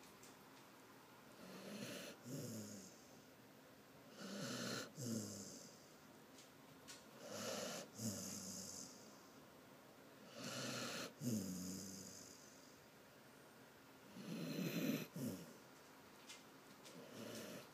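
Snoring: about six loud snoring breaths, each lasting about a second, coming roughly every three seconds.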